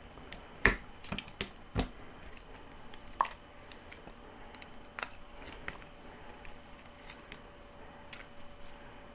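Scattered small clicks and knocks of a food chopper's electric motor assembly being handled and pressed down into its plastic base housing, the loudest two knocks about a second and two seconds in.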